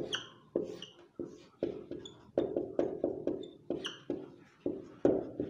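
Whiteboard marker writing on a board: irregular taps of the tip against the board, two or three a second, with brief squeaks as the strokes are drawn.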